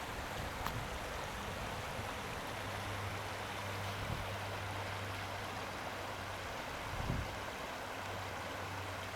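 Steady rush of flowing creek water, with a low steady hum joining about two and a half seconds in and two soft low thumps later on.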